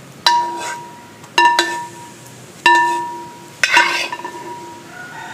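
A spoon knocked against the rim of a metal or glass vessel five times, two of the knocks in quick succession. Each knock rings briefly on the same bell-like tone, the kind of knocking done to shake off clinging sauce.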